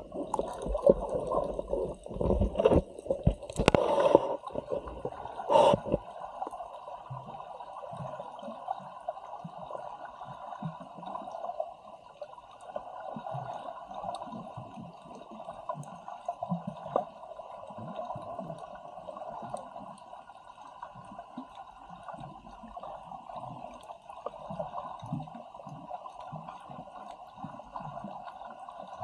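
Water heard through a submerged camera: several sharp splashes in the first six seconds, then a steady muffled wash with faint low bubbling and gurgling.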